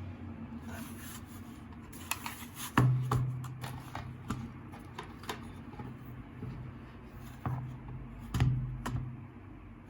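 Mechanical keyboard being handled, with scattered sharp clicks and two heavier knocks, the first about 3 seconds in and the second near the end, each followed by a short low hum.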